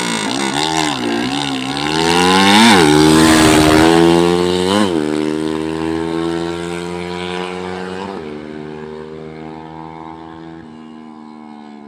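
Freshly overhauled small motorcycle engine revving a few times, then accelerating hard up through the gears, the pitch dropping at each of three shifts, and fading as the bike rides away.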